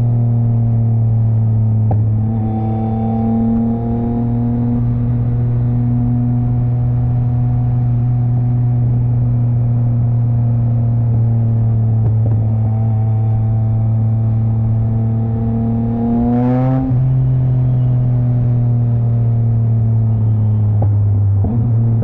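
Yamaha MT-09's three-cylinder engine and exhaust pulling at a steady cruising note. About three-quarters of the way through, the revs climb, then drop suddenly with a brief sharp crack. Another small dip in pitch comes near the end.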